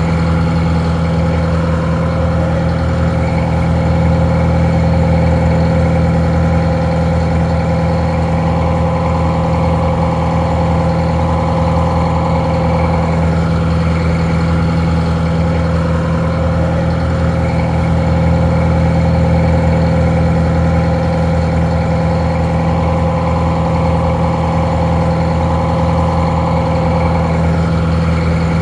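Detroit Diesel 4-71 two-stroke inline four-cylinder diesel idling steadily, sounding a little muffled.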